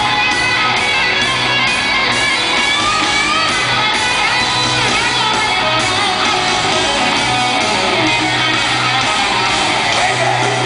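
Live hard-rock band playing loudly, led by electric guitar and bass guitar.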